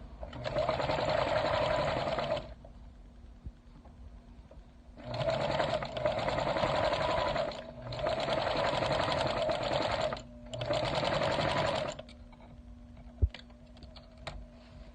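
Electric sewing machine stitching in four runs of about two seconds each, with short pauses between them, then a single sharp click near the end.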